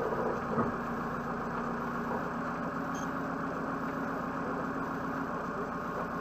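Old van's engine idling steadily, heard from inside the cab while it sits stationary in gear.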